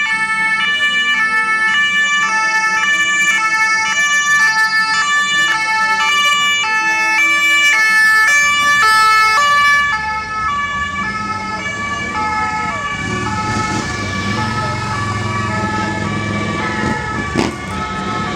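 A loud siren-like signal of tones switching back and forth about twice a second for the first ten seconds, then the engines of an approaching procession of motorbikes and three-wheeled roadsters running, with a steady high tone still sounding over them.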